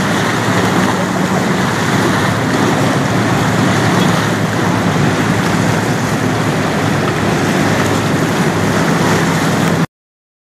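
A passing motor yacht's engines humming steadily under a loud rush of waves and wind. The sound cuts off suddenly near the end.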